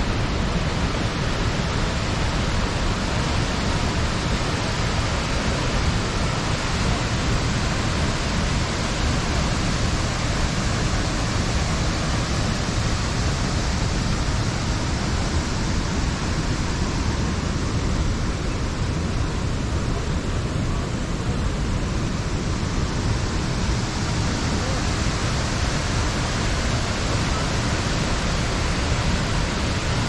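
Athirappilly Falls, a large waterfall, with its water rushing steadily and evenly.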